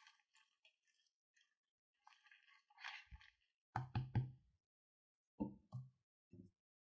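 Silicone spatula stirring foamy slime in a glass dish: faint squishing and crackling of the foam, then a few dull knocks, three close together about four seconds in and a few more between five and a half and six and a half seconds.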